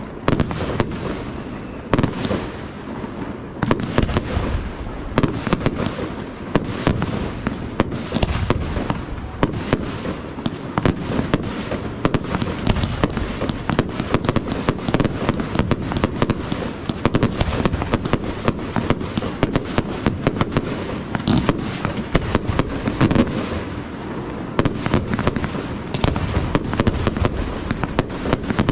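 Aerial firework shells bursting in a dense, continuous barrage, with many bangs a second over a steady rumble.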